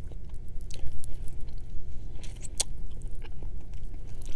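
Close-miked chewing of a mouthful of food, with scattered small wet mouth clicks.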